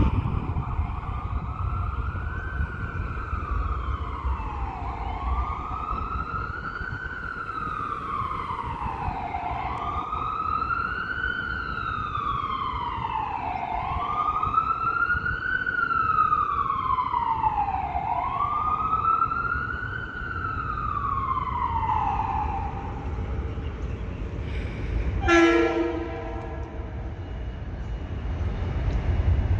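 Emergency vehicle siren wailing, its pitch rising and falling slowly five times before it fades, over a steady low rumble. A short horn blast sounds near the end.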